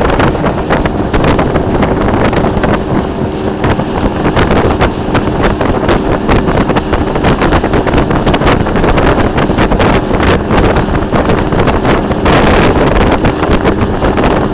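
Loud wind buffeting the microphone on a fast-moving motorboat, with the boat's engine running as a faint steady hum beneath.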